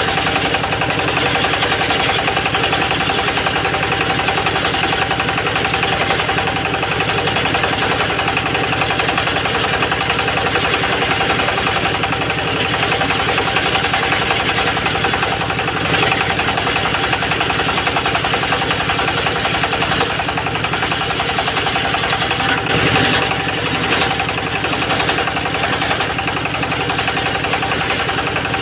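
Small petrol engine of a homemade circular-saw sawmill rig running steadily at speed, a rapid engine beat under a constant whine.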